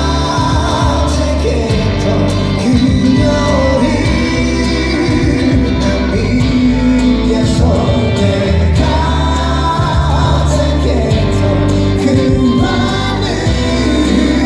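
Live pop song in concert: a male lead singer over band accompaniment, with a crowd of voices singing along.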